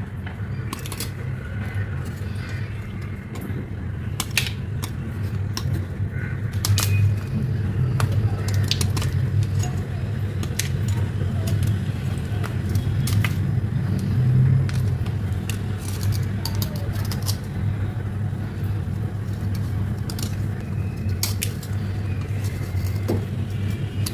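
A slate bar being crunched and crumbled, giving irregular sharp cracks and crunches over a steady low hum.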